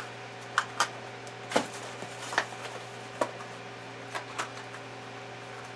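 Handling noise: about eight light, sharp clicks and taps at irregular intervals, over a steady hum.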